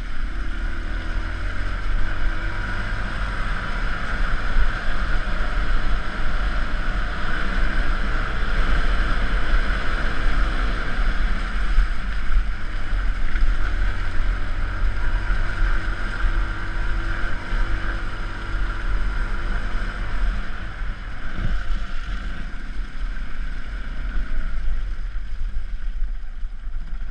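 Yamaha WR125R's single-cylinder four-stroke engine running as the trail bike is ridden, its pitch rising and falling with the throttle, with wind noise on the microphone. A short thump about two-thirds of the way through.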